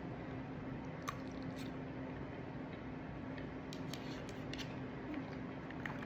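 Quiet eating of pasta: soft chewing and a few small wet mouth or fork clicks, over a steady low room hum.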